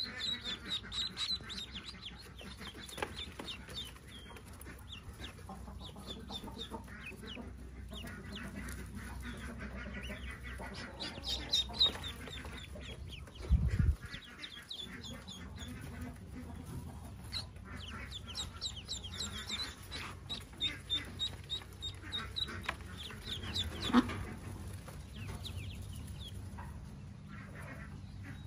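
Newly hatched Pekin ducklings peeping, with a steady string of short high peeps. A single dull thump comes about halfway through.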